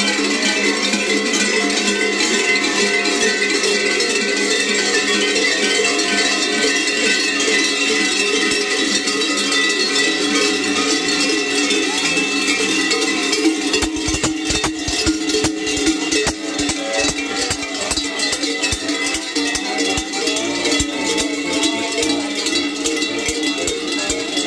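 Many large cowbells clanging together on the belts of kurenti, the sheepskin-clad Slovenian carnival figures, ringing continuously as they walk. From about halfway, heavier uneven clanks and knocks join in as the bells jolt close by.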